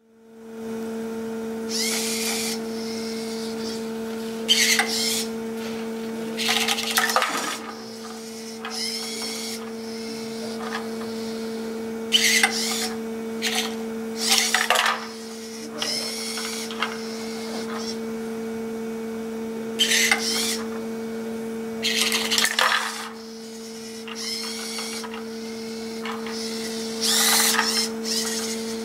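Small wheeled strawberry-picking robot's electric motors whirring in about ten short bursts as it drives and works its gripper arms, over a steady electrical hum.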